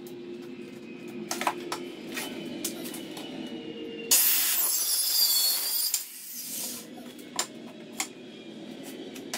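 Corded circular saw cutting through a wooden board for about two seconds, starting about four seconds in, its high whine dipping under load. A few sharp wooden knocks come before and after as the boards are handled.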